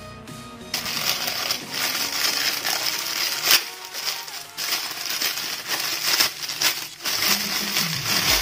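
Thin plastic bag being crumpled and pulled open by hand: a dense crinkling that starts under a second in, with a sharper, louder crackle about halfway through.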